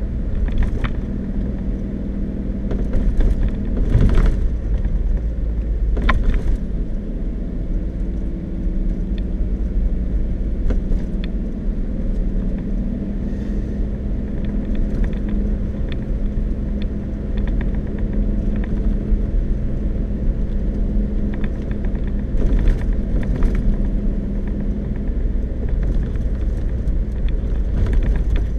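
Vehicle cabin noise while driving on a dirt road: a steady engine hum and tyre rumble, with a few sharp knocks and rattles, the clearest about four and six seconds in and a cluster near the end.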